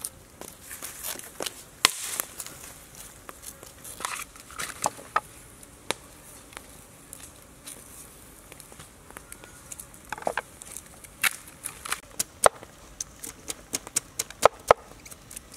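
A knife cutting and peeling a fresh bamboo shoot: crisp crackling and tearing as the husk sheaths are stripped and sliced, with sharp knocks of the blade on a wooden chopping board that come quickly one after another near the end.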